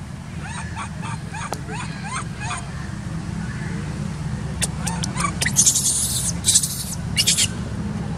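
Baby macaque giving a run of short squeaky calls, about two a second, in the first few seconds. Later, several short, loud scratchy noises stand out as the loudest sounds.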